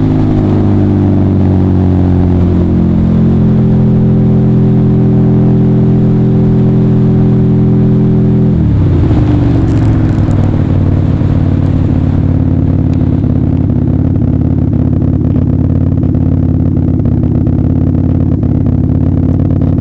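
Drag motorcycle's engine winding down after a pass. The note falls as the bike slows, steps up slightly about three seconds in, holds steady, then drops sharply just before the middle and settles into a low steady run. Wind rush fades as the speed comes off.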